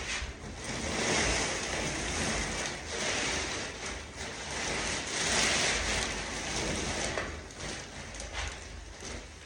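Plaster debris sliding and pouring off a drop cloth into a bag, with the cloth rustling: a steady rattling hiss that swells twice and eases off near the end.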